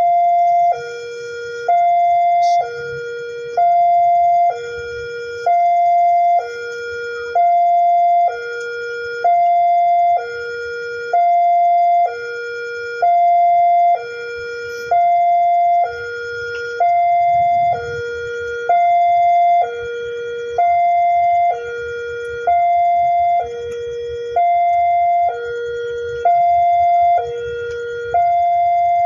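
Railway level-crossing warning alarm sounding: an electronic two-tone signal alternating steadily between a higher and a lower note, each held just under a second, warning that a train is approaching the crossing.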